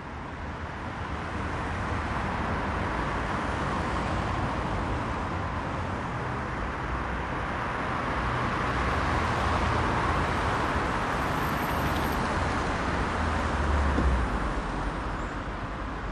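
City road traffic: cars driving past on a multi-lane street, a steady rumble and tyre noise that swells as vehicles go by, loudest near the end.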